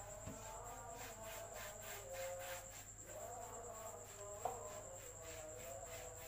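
Crickets chirping, a steady high trill in even pulses, with faint wavering tones underneath and one short knock a little after four seconds in.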